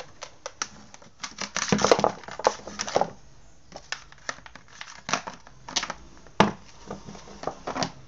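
Plastic parts of a Mondial desk fan clicking, scraping and rattling as the housing is handled and pulled apart, with a denser stretch of scraping about two seconds in and scattered sharp clicks after it.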